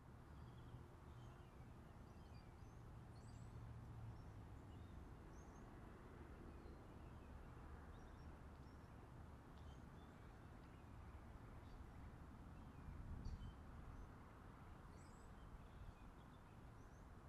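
Near silence: faint outdoor ambience with a low rumble and scattered short, high bird chirps.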